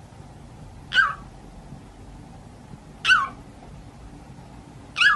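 A parrot giving three short, high-pitched calls, each falling in pitch, about two seconds apart.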